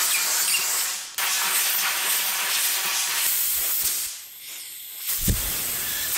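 Compressed-air blow gun hissing in long blasts into the end of a rubber handlebar grip, inflating it so it slides down over the throttle tube. The hiss breaks off briefly about a second in and again near four seconds, then starts again. There is a low thump about five seconds in.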